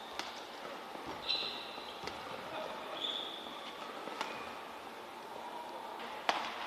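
Badminton rally: four sharp racket strikes on the shuttlecock about two seconds apart, the last the loudest, with two short high squeaks of court shoes between the first and second hits.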